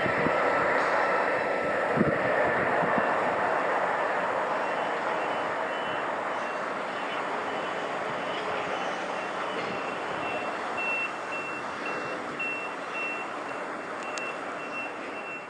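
Freight train of covered wagons rolling away along the line, its wheel and rail noise fading steadily. From about five seconds in, a faint high beep repeats about twice a second, clearest near the end.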